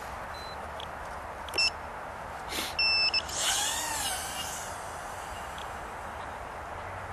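Steady hiss from the FPV drone's onboard audio feed, broken by two short high electronic beeps about one and a half and three seconds in, a click between them, and a brief whine that rises and then falls just after the second beep.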